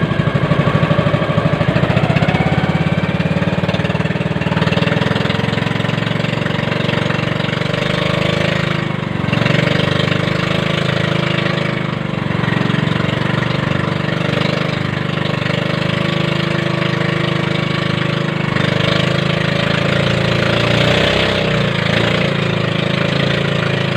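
Engine of a motorized outrigger fishing boat running steadily, a continuous loud hum.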